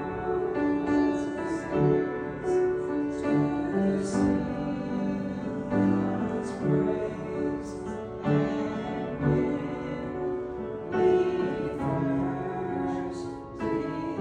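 Piano music: a slow piece of held notes and chords changing about once a second.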